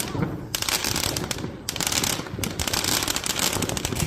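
Fireworks going off in a dense run of rapid crackling pops.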